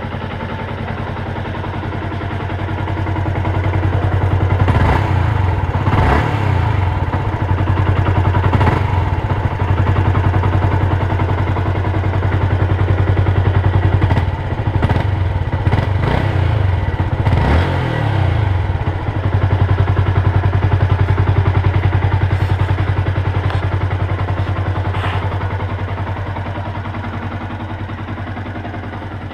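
Yamaha YZF-R125's single-cylinder four-stroke engine, warm and with its stock exhaust, idling and revved several times: the revs rise and fall in quick blips through the first two-thirds, then it settles to a steady idle that gets a little quieter near the end.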